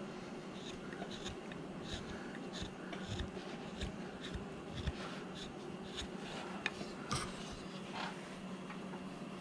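Carving knife paring shavings from a wooden figure: a series of short scratchy cuts, roughly one or two a second, that stop near the end. A steady low hum runs underneath.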